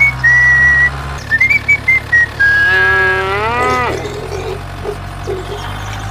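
Several short whistled notes, then one long pitched call that holds and bends upward before breaking off, over a steady low hum.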